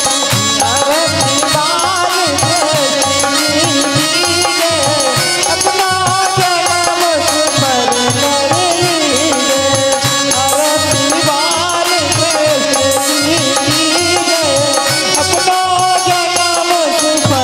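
Live Hindu devotional aarti song to Krishna: a melody line that wavers in pitch over a steady hand-drum rhythm and dense percussion.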